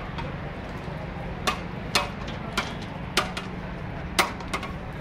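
A string of sharp knocks or clicks, roughly one every half second with uneven gaps, over a steady low rumble.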